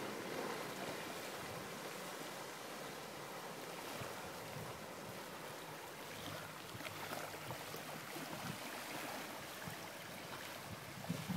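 Outboard motor of a Volzhanka 51 aluminium boat running at a distance, a faint steady hum under a wash of wind and small waves on the water.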